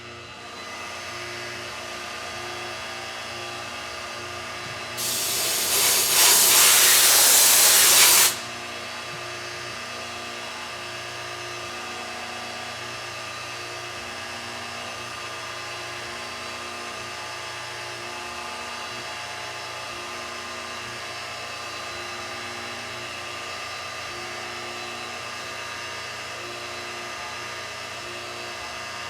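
CNC milling machine running a machining cycle on brass: a steady spindle whine with the hum of the axis motors. About five seconds in comes a loud hiss lasting about three seconds, then the steady running carries on.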